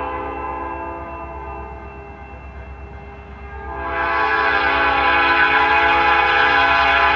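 Air horn of an approaching diesel locomotive sounding: a blast that fades in the first few seconds, then a loud long blast from about four seconds in, over the low rumble of the train.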